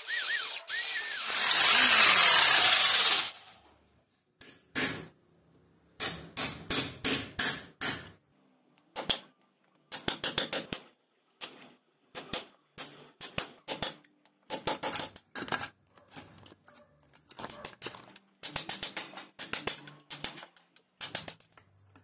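Electric demolition hammer chiseling concrete for about three seconds, then stopping. After that come repeated sharp strikes of a hammer on a hand chisel, chipping concrete from around a metal junction box, in irregular bursts of a few blows.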